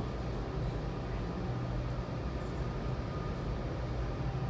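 Steady low rumble and hum of a Metra commuter train heard from on board, with a faint steady tone above it.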